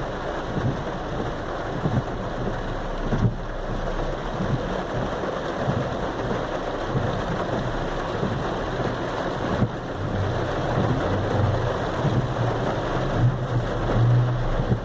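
Heavy rain falling on a car in a downpour, a steady dense hiss, with the car's engine running underneath as a low hum that grows stronger from about ten seconds in.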